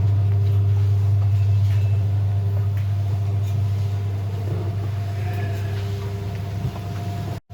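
Livestock feed mixer machine running with a steady, even hum. The sound cuts out briefly near the end.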